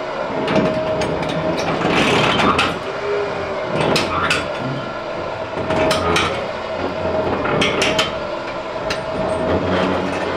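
Winch slowly pulling a stalled old truck: a steady motor whine with repeated sharp knocks and clunks throughout.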